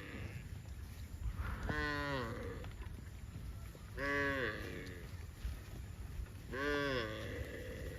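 Cows mooing: three separate moos about two and a half seconds apart, each rising and then falling in pitch.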